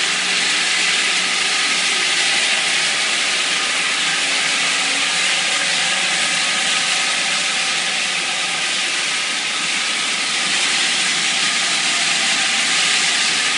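SX-12 rotary spinner tool cleaning tile and grout: a steady, loud hiss of pressurised hot-water spray and vacuum extraction through the hose, with a faint steady whine underneath.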